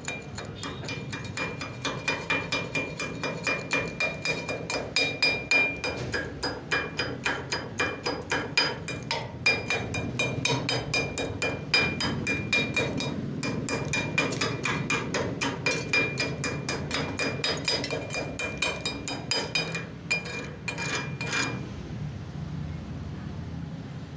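Chipping hammer striking a welded steel plate in quick, even blows, about four a second, each with a metallic ring, as slag is knocked off a practice weld. The blows stop near the end, leaving a steady low noise.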